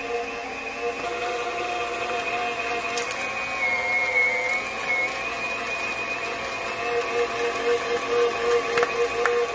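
KitchenAid stand mixer's motor running a Kenome meat grinder attachment, a steady whine as pork is pushed through and comes out ground.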